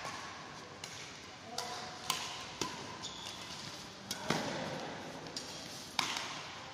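Badminton rackets striking the shuttlecock in a rally: about six sharp, echoing hits at uneven spacing, the loudest about four seconds in and near six seconds.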